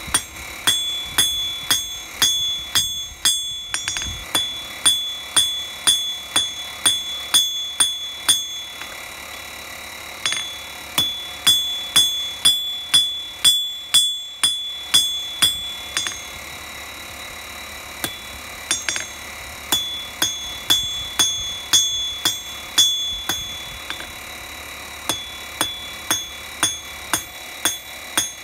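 Hand hammer striking a small steel bar on an anvil, forging a scroll. The blows come in steady runs of about two to three a second, each leaving a high ring from the anvil, and the runs stop for a couple of seconds a few times.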